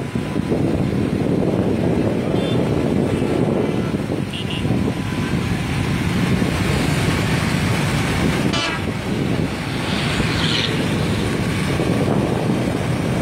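Small motorcycle engines running steadily at riding speed along a road, mixed with road and wind noise.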